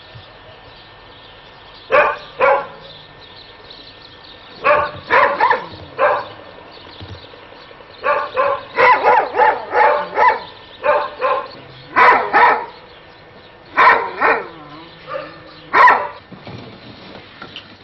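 A dog barking repeatedly in short volleys of two or three barks, with a faster run of barks through the middle.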